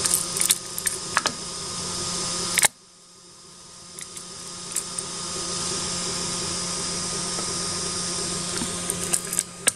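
A steel chisel clicking and ticking against a 3D-printed plastic part and the taped printer bed as it pries the part free, over a steady hum. A sharper click comes about two and a half seconds in, after which the hum drops away abruptly and slowly returns.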